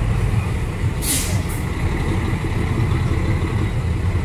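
Race truck's heavy diesel engine running with a loud, steady low rumble, just after a burnout. About a second in comes one short, sharp hiss of air, like an air brake releasing.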